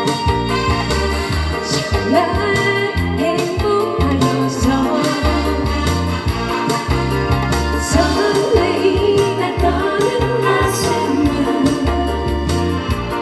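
Korean trot music with a steady bass beat and electronic keyboard.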